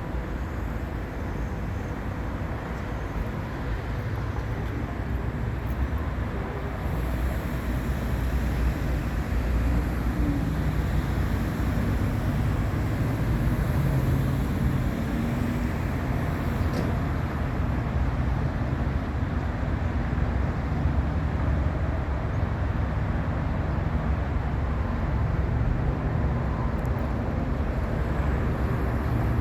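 Steady freeway traffic noise, a continuous rumble of passing cars and trucks that grows a little louder several seconds in.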